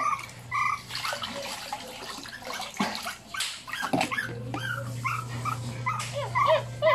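Pomeranian puppy whimpering and yelping in short high calls while held in bath water, the calls coming thick and fast near the end, with some water splashing midway.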